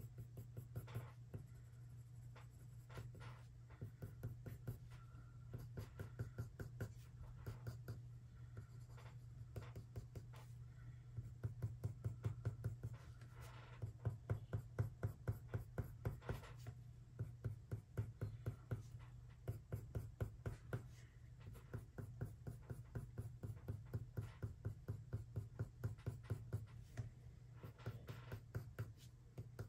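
Colored pencil scratching on Fabriano Artistico watercolor paper in a fast, even run of short shading strokes.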